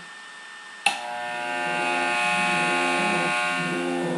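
Electric hair clippers switched on about a second in and buzzing steadily as they shave off long hair, heard through a television speaker.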